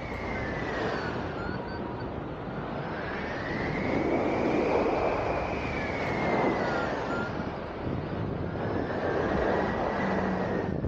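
Rushing wind over a hang glider swooping through wingovers and dives, with a whistling tone that rises and falls in pitch three times as the loudness swells and eases.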